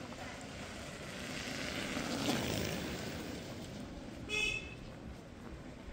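A vehicle passes, its noise swelling and then fading, and a short, high horn beep sounds about four seconds in.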